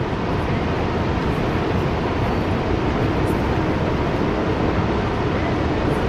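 Steady rush of water pouring over Niagara's American Falls, an unbroken dense noise heavy in the low end.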